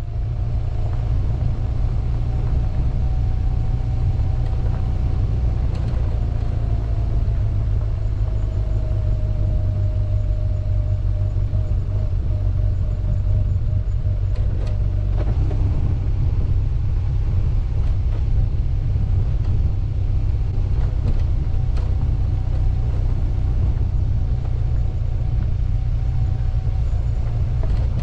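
BMW R1200GS boxer-twin motorcycle engine running at low speed, heard on board as the bike crawls down a rocky dirt track, with a steady low rumble and a few knocks from the rough ground.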